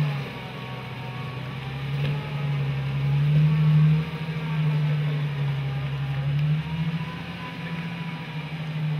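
Jeep Wrangler YJ engine running steadily at low revs as it crawls through a shallow rocky creek. The drone jumps in level a few times.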